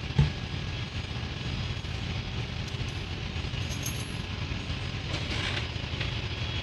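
Steady drone of running engine machinery filling a loud workshop, with one low thump shortly after the start and a few light metallic clinks.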